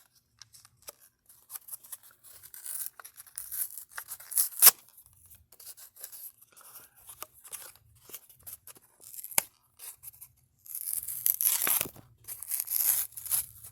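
Toy-car packaging being worked open by hand: scattered clicks and taps of plastic and cardboard, with one sharp click about four and a half seconds in, then a few seconds of louder tearing and rustling near the end.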